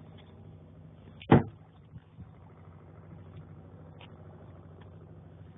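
A fishing boat's engine running steadily with a low hum while trolling, and one sharp knock a little over a second in.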